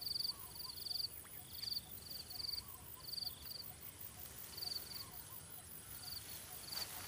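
Cricket chirping in short, rapidly pulsed high trills, about two a second, with a pause of about a second near the middle.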